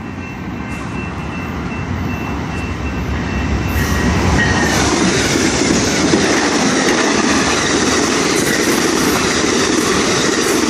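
Amtrak passenger train led by a GE Genesis P42DC diesel locomotive passing very close at speed, its wheels and cars running on the rails; the rail noise grows louder about four seconds in.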